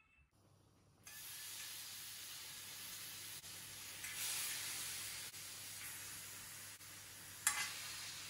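Skewered chunks of marinated lamb and lamb fat sizzling on a hot flat pan as they are laid down, a steady hiss that starts about a second in and swells briefly about four seconds in as another skewer goes down. A short click near the end.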